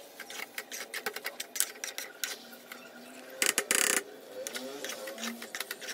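Metal spoon scraping and clicking against a steel kadai as stir-fried noodles are tossed and mixed, in quick irregular clicks, with a louder scrape about three and a half seconds in.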